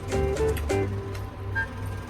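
Background music with held melody notes over a steady bass line, with light percussive strikes.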